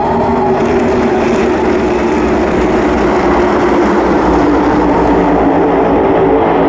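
V8 engines of a field of NASCAR Cup Series stock cars going by on the track, heard together as a loud, steady, unbroken engine sound.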